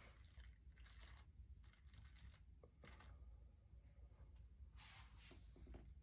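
Faint rustling and crinkling of plastic sheeting being handled, in several short bursts, over a low steady room hum.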